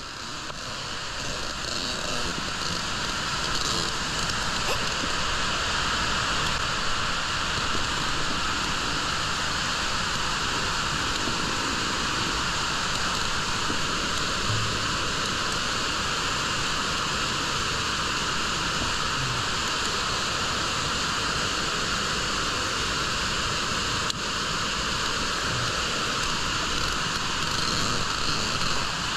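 Steady rushing noise of a large underground waterfall pouring down a deep cave shaft, with spray and dripping water around the microphone. It swells up over the first couple of seconds, then holds level.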